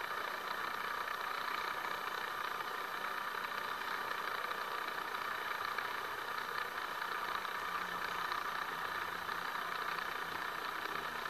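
A steady, unchanging background hum with hiss.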